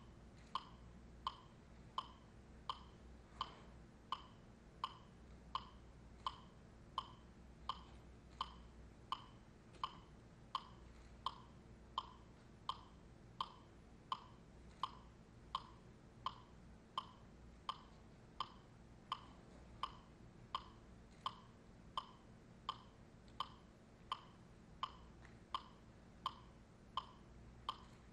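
Metronome ticking at a steady, even pace, about three ticks every two seconds, each tick a short pitched click.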